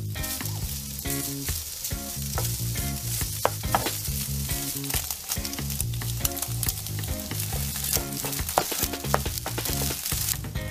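Diced Spam frying in oil in a nonstick pan, sizzling steadily, while a wooden spatula stirs it with scattered clicks and scrapes against the pan.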